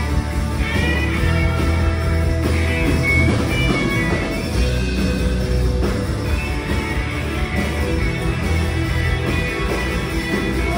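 Live rock band playing an instrumental passage: electric guitars, bass, drum kit and keyboard, with a pitched line that bends in pitch near the start.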